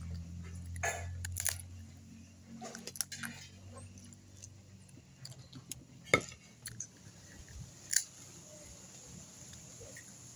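Crab shells being cracked and picked apart while eating, heard as scattered sharp cracks and clicks, the loudest about six seconds in. A low steady hum fades out over the first few seconds.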